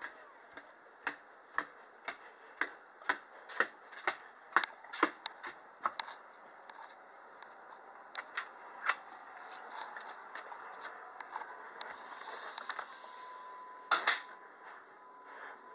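Footsteps on a porch floor, about two a second, then a door being handled and opened, with a loud knock near the end as it shuts.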